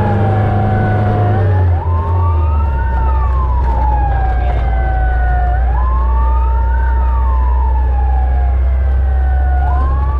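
Fire truck's electronic siren wailing, heard from inside the cab: a tone that climbs and falls again about every four seconds, over the truck's low steady engine drone.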